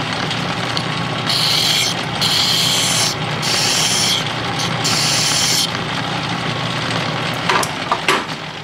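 Metal lathe running steadily while a flat hand file is stroked against the spinning steam-engine cylinder head, giving four or five rasping strokes in the middle to deburr its edge. A few sharp knocks come near the end.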